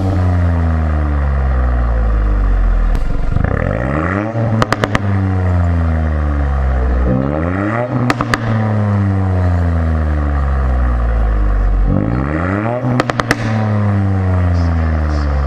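Ford Fiesta ST Mk8's 1.5-litre three-cylinder engine revving through a Milltek cat-back exhaust: three quick blips of the throttle, each with a short burst of crackles at the top, then a slow fall back to idle.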